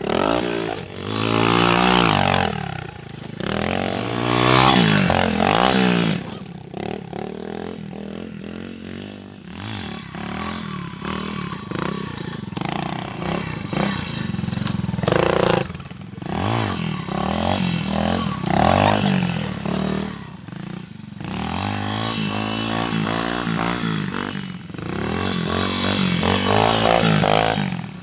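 Bored-out Yamaha pit bike engine ridden hard, its pitch climbing and dropping again and again as the throttle is opened and rolled off, with a few sudden breaks in the sound.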